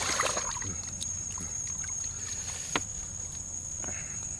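Wet eating and handling sounds of boiled apple snails being picked and chewed, with one sharp click about two-thirds of the way in, over a steady high-pitched insect drone.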